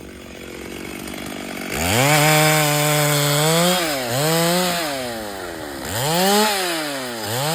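Chainsaw idling, then revved hard just under two seconds in and held at high speed, its pitch dipping and climbing again three times.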